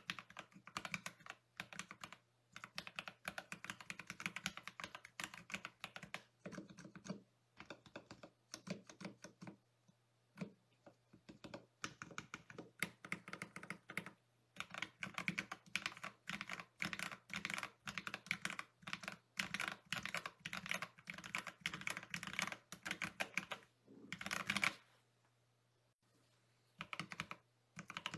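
Typing test on a mechanical keyboard fitted with Akko CS Jelly Black linear switches and PBT keycaps: fast runs of keystrokes in bursts, with brief pauses between them.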